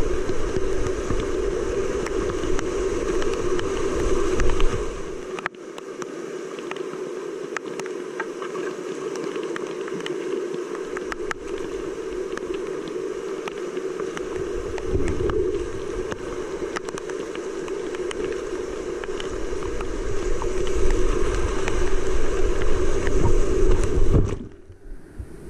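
Whitewater rapids rushing around a kayak in a steady loud wash, with a low rumble underneath that drops away after about five seconds and comes back later. Near the end a splash of water washes over the camera and the sound goes suddenly muffled.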